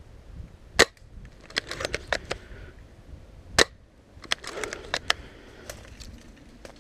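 Two sharp shots from an airsoft sniper rifle, about three seconds apart, with a run of lighter clicks after each shot.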